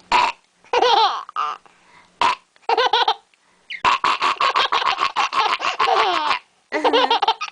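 A baby laughing at a woman's fake burps. Short high squeals come first, then a long run of quick laughs in the middle and one more burst near the end; a fake burp is mixed in among them.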